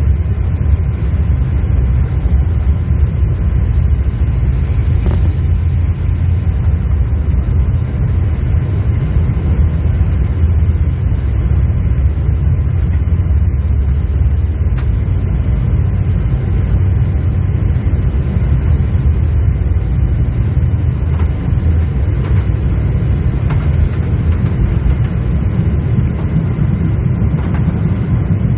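Steady low rumble inside the cabin of a Boeing 747-8 on the ground after landing, with its engines still running.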